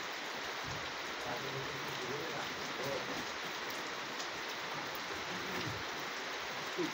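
A steady, even hiss with faint men's voices in the background.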